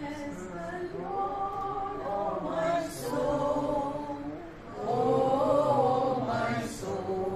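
A mixed group of men's and women's voices singing a song together from song sheets, in long held phrases, with a short break for breath about four and a half seconds in.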